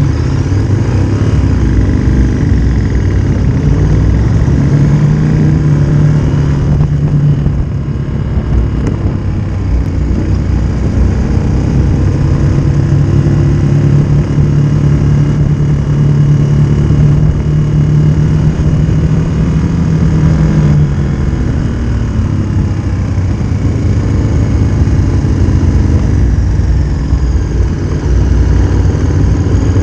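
Motorcycle engine running at road speed under heavy wind noise on the microphone. The engine note holds a steady pitch for stretches, from about 5 to 7 seconds in and from about 13 to 21 seconds in.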